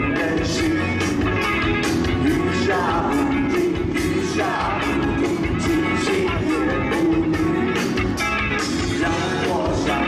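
Live rock band playing a song with a steady drum beat and a voice singing over it.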